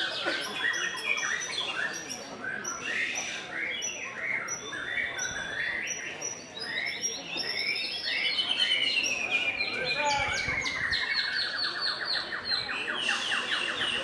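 White-rumped shama (murai batu) singing a fast, varied song of whistled phrases and chirps. Past the middle comes a long rapid trill that slides down in pitch.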